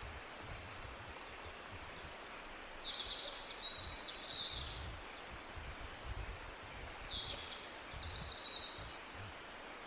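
Birds chirping in two bouts of short, high calls over steady outdoor background noise with low rumble.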